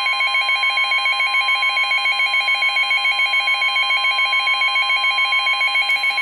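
Weather-radio emergency alert: a steady warning tone of about 1050 Hz under a rapid electronic warbling alarm. Both signal a severe thunderstorm warning. Near the end the warble cuts off and the steady tone carries on alone.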